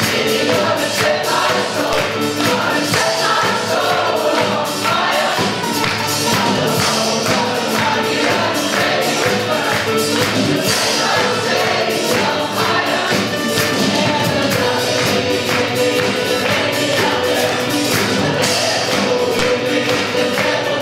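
A large ensemble of young and adult voices singing an upbeat song together as a chorus, with backing music and a steady beat.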